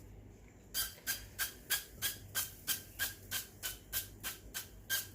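Olive oil spray bottle spritzed in quick short hissing squirts, about three or four a second, starting about a second in.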